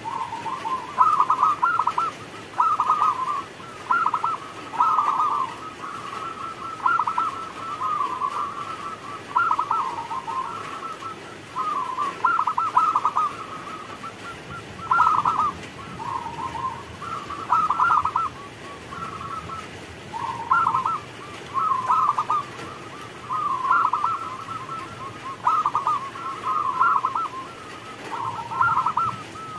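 Zebra dove cooing over and over: short, rolling, staccato coo phrases, one about every second or so.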